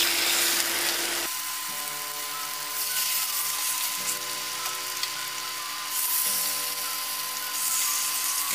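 Pork belly slices sizzling in a little hot oil in a nonstick frying pan as they are laid in one after another. The sizzle swells a few times as fresh slices go in. Soft background music with held notes plays underneath.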